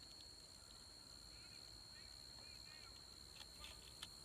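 Near silence: faint field ambience with a steady thin high whine, a few faint high chirps, and a single sharp click near the end.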